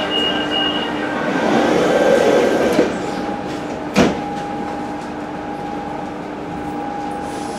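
Metro carriage sliding doors closing: a high warning tone stops about a second in, then the doors shut with one sharp bang about four seconds in. The train's steady electric hum carries on afterwards.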